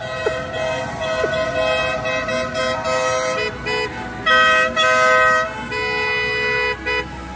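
Vehicle horns sounding in long held notes, several at once at different pitches, with two louder blasts about four to five seconds in.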